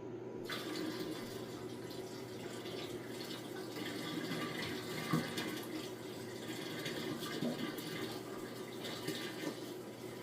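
Water running steadily into a container, filling it, with small splashes and drips.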